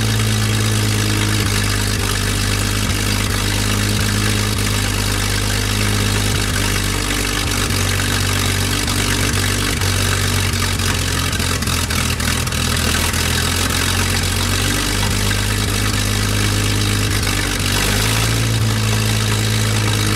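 Hercules HXD inline-six engine running steadily on a test stand, on its first run after a long restoration; its note wavers slightly in the middle and firms up again near the end.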